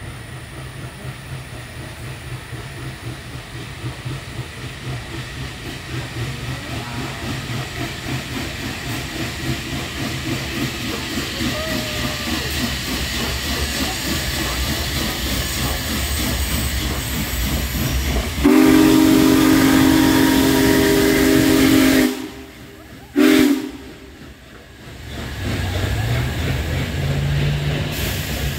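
Union Pacific Big Boy 4014, a 4-8-8-4 articulated steam locomotive, passing overhead, its exhaust chuffing in a fast rhythm and growing louder as it approaches. About 18 seconds in its steam whistle sounds one long multi-tone blast of some three and a half seconds, then a short toot a second later. Near the end a trailing Union Pacific diesel locomotive's engine is heard running.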